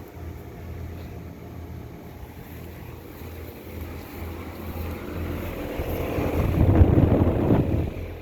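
Trane XR outdoor air-conditioner condenser running, a steady low hum from the compressor and fan. A louder rushing swell builds about five seconds in, peaks, and falls away just before the end.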